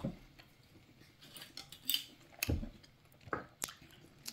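Metal chopsticks clicking together and tapping against the pan as they pick up pieces of rice cake: a handful of short, sharp clicks at irregular intervals.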